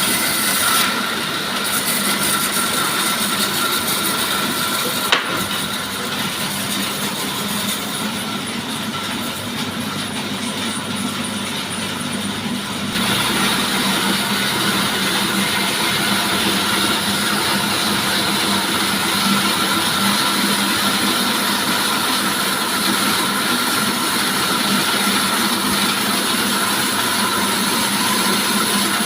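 Sawmill running and sawing wood: a steady mechanical drone with a high whine, with a sharp click about five seconds in, growing louder a little before halfway.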